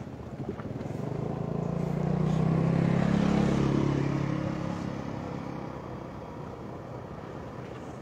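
A motor vehicle passing close by: its engine sound swells, is loudest about three seconds in, then fades away.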